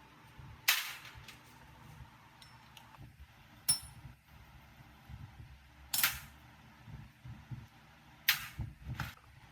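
Five sharp knocks, like tool strikes on metal, spaced about two to three seconds apart with the last two close together; one rings briefly. A faint low hum runs underneath.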